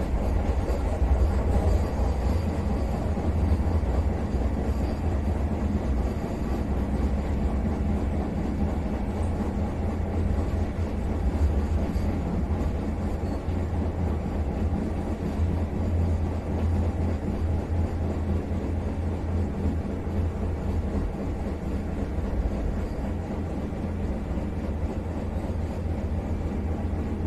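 A Vande Bharat Express electric train set running along the track, heard from inside the driver's cab: a steady deep rumble with no breaks.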